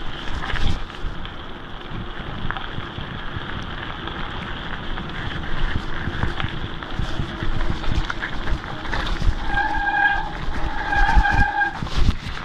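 Mountain bike rolling fast downhill on a dirt and gravel track, with tyres crunching and the bike rattling over bumps. Near the end the brakes squeal twice, each time briefly on one steady high pitch.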